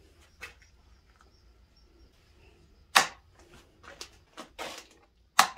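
Sharp switching clicks from an electrical control box of heavy-duty relays and switches: two loud clicks, about three seconds in and near the end, with a few fainter clicks between.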